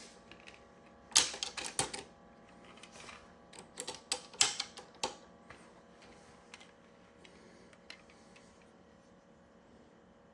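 Clicks and clacks from a Weatherby Vanguard rifle's action and its newly fitted Timney 611 trigger, worked by hand while the trigger pull weight is checked with a pull gauge. The clicks come in a quick cluster about a second in, another around four to five seconds, and a single tick near eight seconds.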